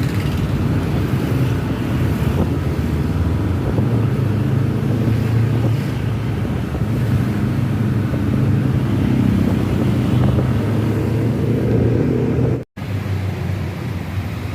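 Tour bus engine running steadily under way, with road noise. The sound drops out for an instant about two seconds before the end, then carries on.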